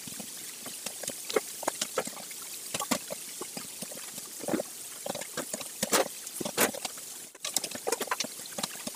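Wire mesh skimmer scooping meat out of broth in a steel pot: liquid splashing and dripping, with many quick clinks of the wire against the pot.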